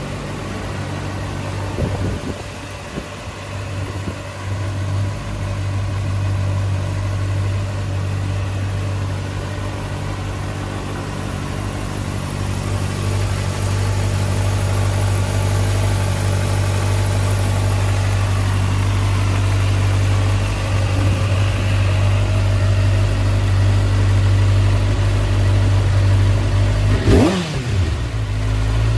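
Kawasaki Ninja ZX-6R inline-four engine idling steadily. Near the end the throttle is blipped, and the revs rise and fall quickly.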